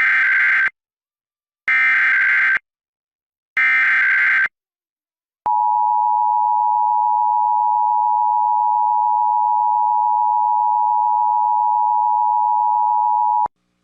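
Emergency Alert System test: three screeching bursts of SAME digital header data in the first few seconds, then the steady two-tone EAS attention signal held for about eight seconds and cut off sharply near the end.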